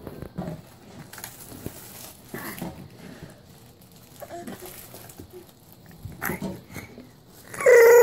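Babies making small babbling sounds and knocking toys while crawling and playing, then near the end a baby lets out a sudden loud, high vocal shout.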